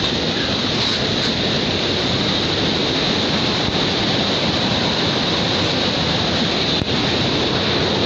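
Waterfall rushing: a steady, even noise of falling water that does not change.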